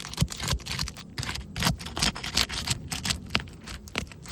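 A metal shingle-removal tool (roof snake) scraping and prying under sealed asphalt shingles, breaking the adhesive seal in an irregular run of sharp clicks and scrapes, several a second.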